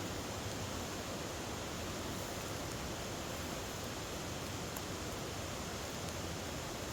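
Steady rush of a waterfall, an even, unbroken noise of falling water.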